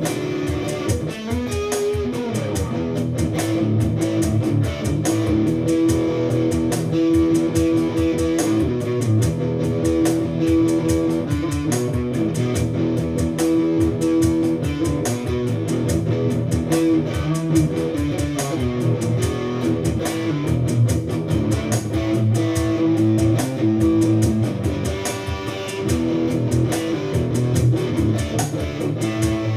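Electric guitar played through an amplifier in a free jam, mixing held melodic notes with busier picking, on the neck pickup's dark but defined tone.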